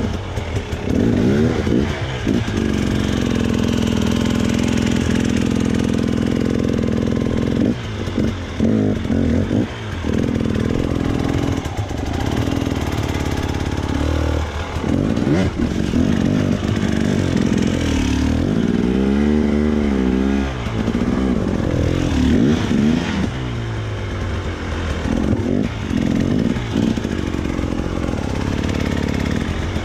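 Husqvarna two-stroke enduro motorcycle engine working at low revs as the bike crawls up steep, rocky, leaf-covered ground. The engine holds a steady note for several seconds, then is revved up and down several times in quick succession around the middle as the rider works the throttle over the rocks.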